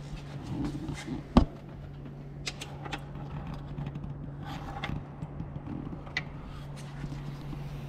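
Workshop sounds over a steady low hum: scattered light clicks and knocks of parts and tools being handled, with one sharp knock about a second and a half in.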